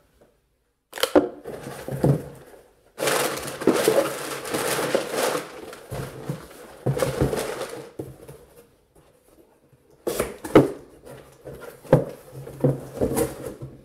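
Cardboard box being handled and closed: a white cardboard insert and the box flaps folded and pushed down, with rustling and scraping and a few sharp knocks, starting about a second in.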